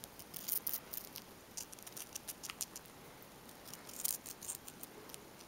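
Long-haired hamster biting and chewing a piece of red bell pepper close to the microphone: quick, irregular crisp crunching clicks, with a dense cluster about four seconds in.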